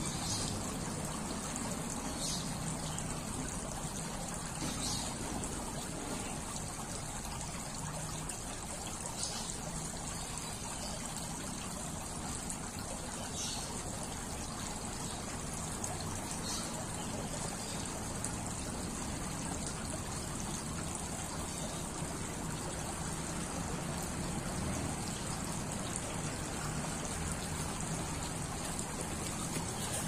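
Running water trickling steadily.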